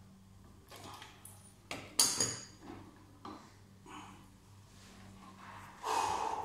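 Hands working on the plastic panel and filter fitting of a Soprano laser machine: a series of clicks and knocks, the sharpest about two seconds in, over a faint steady hum. A louder short rushing sound comes near the end.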